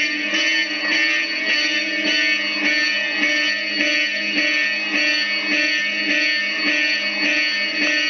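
Fire alarm horns on a Simplex 2001 panel sounding the March Time evacuation signal: a loud, buzzy horn tone pulsing on and off about twice a second. This is the sign of a fire alarm panel in alarm.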